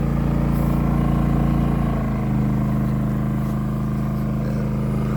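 WEN 56380i 3800-watt inverter generator's engine running steadily in full mode under the load of a trailer's air conditioner. Its tone shifts slightly about two seconds in.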